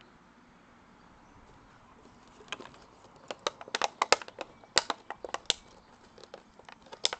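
A dog chewing on a crushed clear plastic bottle: sharp, irregular crackles and crunches of the plastic, starting about two and a half seconds in and coming in quick clusters.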